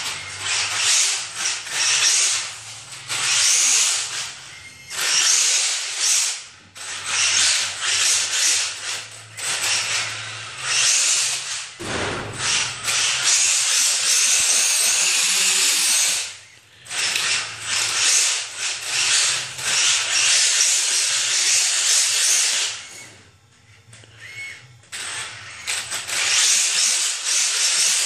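Tamiya Hotshot RC buggy with a brushless motor driven in repeated bursts of throttle: a high-pitched motor whine and tyre noise on a concrete garage floor as it spins circles. One long burst about halfway through, and a brief lull about three-quarters of the way in.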